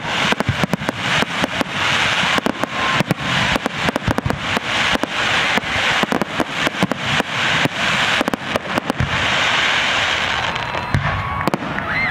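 Aerial fireworks bursting in quick succession, a dense run of sharp bangs. About nine seconds in, the separate bangs merge into a continuous crackling hiss.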